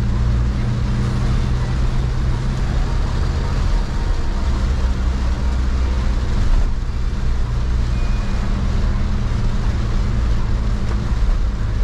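In-cabin sound of a Toyota van driving in heavy rain: a steady low engine drone with the hiss of rain and wet tyres on the road.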